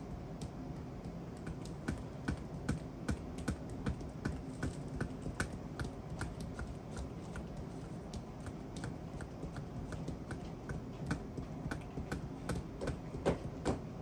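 Two small massage hammers tapping on a bare foot in a quick, even rhythm of about two to three light taps a second, with a few harder taps near the end.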